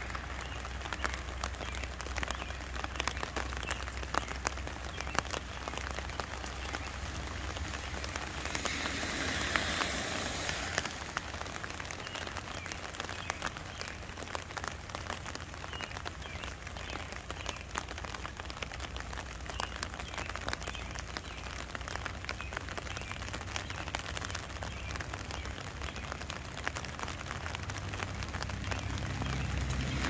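Steady rain falling, with many sharp separate drops tapping on an umbrella overhead; the rain swells briefly about nine seconds in.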